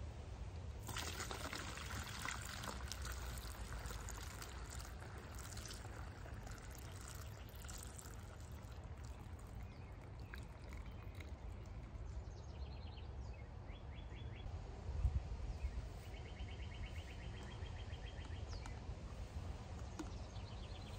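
Liquid poured from a glass jar through a metal mesh strainer and funnel into a plastic bottle. It pours heaviest over the first several seconds, then thins to a trickle. A low thump comes about fifteen seconds in.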